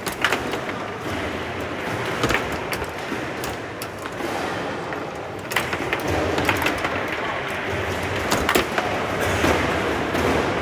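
Foosball table in play: irregular sharp clicks and knocks as the ball is struck by the plastic figures and bounces off the table walls, with the rods clacking, over steady background noise.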